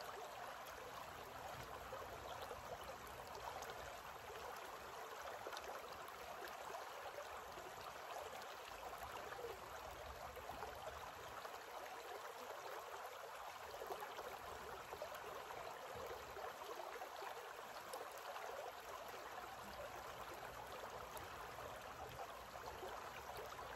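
Shallow creek running over rocks: a faint, steady rush of water.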